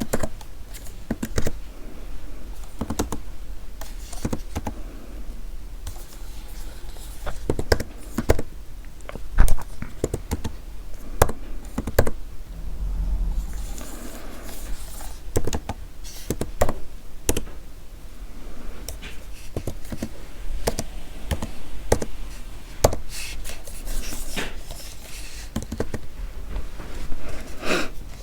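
Computer keyboard being typed on close to the microphone: irregular keystroke clicks, unhurried, with a few sharply louder taps about a third of the way in and some soft rubbing between keys.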